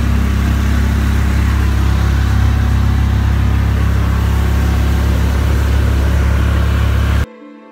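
Tuk-tuk under way, heard from inside its open passenger cabin: the engine runs steadily under a loud, even rush of wind and road noise with a heavy low rumble. It cuts off suddenly near the end.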